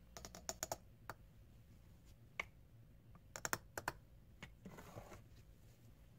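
A plastic measuring scoop tapping against the rim of a stainless steel mug to knock out cocoa powder: two quick clusters of light clicks, one near the start and another about halfway through, with a brief soft rustle shortly after.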